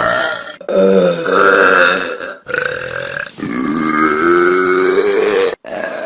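A run of loud, drawn-out human burps, about five in quick succession, each starting and stopping abruptly; the longest last about two seconds.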